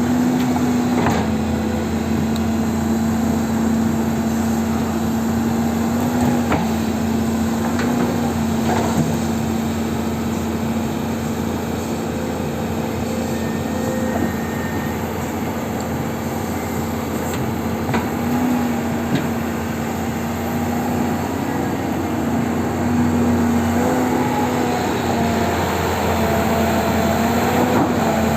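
Hydraulic excavator's diesel engine running steadily at working revs, its pitch lifting briefly several times under hydraulic load, with a few short knocks.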